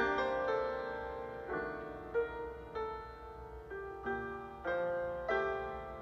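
Soft background piano music: single notes and chords struck and left to ring, a new one about every half second.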